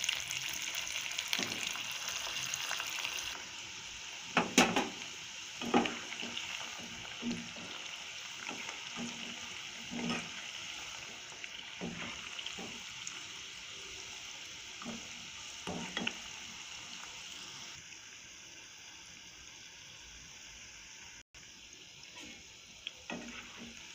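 Vegetable Manchurian balls deep-frying in oil on a low flame: a steady sizzle of bubbling oil, with several sharp knocks along the way. The sizzle gets quieter in the last few seconds.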